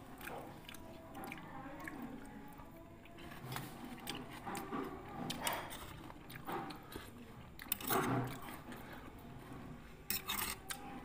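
A person eating rujak, chewing pieces of fresh fruit, with a metal spoon scraping and clinking against the bowl; a few sharp clinks near the end.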